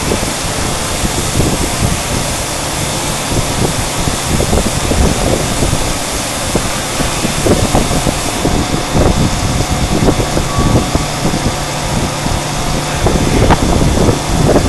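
CNC machine milling an acrylic plate: steady machine noise with an uneven, rough low-pitched chatter throughout.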